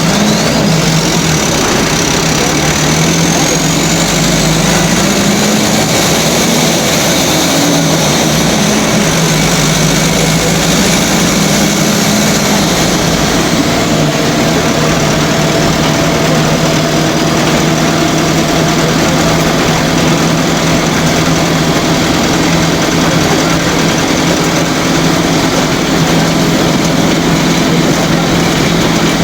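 Diesel engine of a Volare Fly 9 microbus running steadily, with a high whine that rises over the first several seconds.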